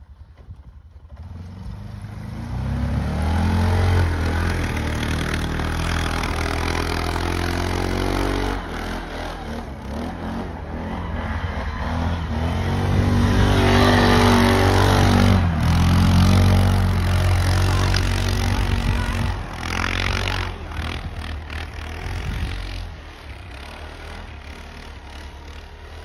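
Arctic Cat TBX ATV on snow tracks driving through deep snow, its engine revving and changing pitch. It grows louder as it ploughs past close by about halfway through, then fades as it drives off.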